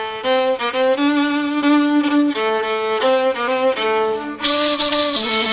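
Instrumental Persian folk music from Chaharmahal: violin and ney playing a melody in short stepping notes, with a steady hiss joining the sound about four and a half seconds in.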